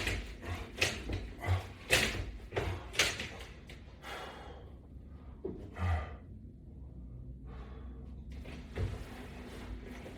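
A person working through resistance-band reps: quick breaths and light knocks come about once or twice a second, then stop about four seconds in, leaving a few isolated knocks and breaths at the end of the set.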